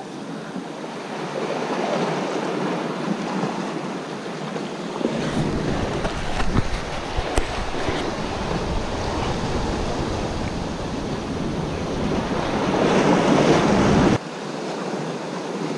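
Sea waves washing and splashing against shoreline rocks, with a surge of surf loudest near the end. Wind buffets the microphone from about five seconds in and cuts off suddenly shortly before the end.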